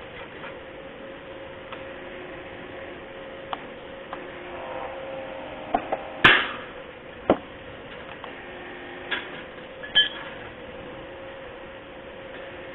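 Hydraulic hole-punch press humming steadily. The hum grows fuller for a second or so before a sharp crack about six seconds in, as the punch goes through the 6 mm stainless steel plate. A few further sharp metal knocks follow as the plate is moved on the die.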